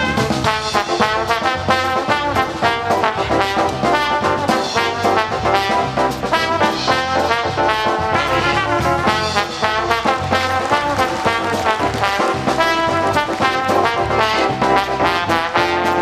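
Lively brass-led music with a steady beat.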